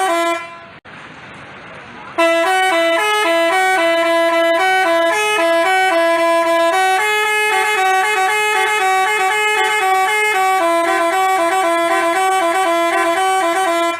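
Telolet basuri multi-tone bus horn playing a fast tune of quickly changing notes, starting suddenly about two seconds in. Before it, low background noise and a single click.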